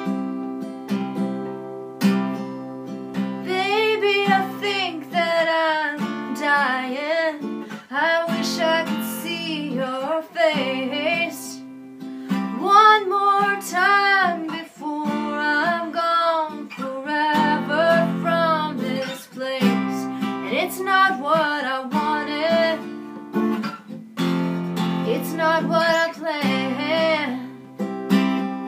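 A woman singing to her own acoustic guitar. The guitar plays alone at first, and her voice comes in about four seconds in.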